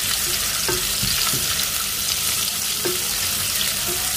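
Sliced shallots sizzling steadily in hot oil in a stainless steel pot, being fried until fragrant, while a silicone spatula stirs them and scrapes or taps the pot a few times.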